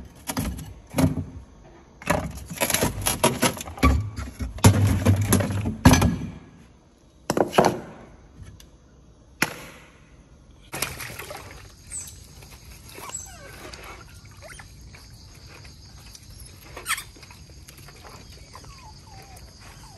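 Clattering and knocking as chunks of pork are lifted off plates in a fridge and set in a plastic food container, with several sharp clicks. About eleven seconds in this gives way to a quieter, steady outdoor background with a high hiss and a few faint squeaks.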